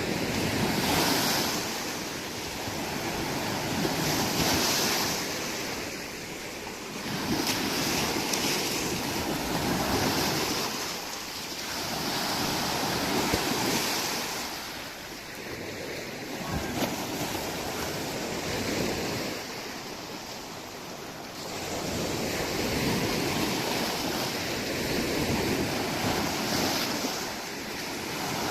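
Lake Baikal waves breaking on the shore, surging and falling back every few seconds, with wind.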